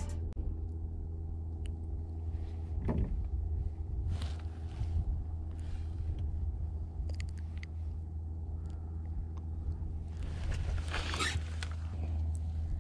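Boat motor running steadily, a low hum, with a few light clicks and rustles of handling near the end.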